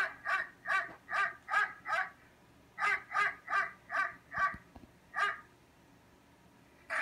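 Dog barking in quick runs of sharp barks, about two or three a second: six in a row, a short pause, five more, then a single bark.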